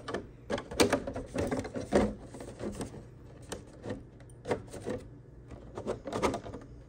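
Irregular plastic clicks and taps as the hard body shell of a Traxxas TRX-4 Sport RC crawler is pressed and seated onto its chassis, coming in two clusters with a short lull between.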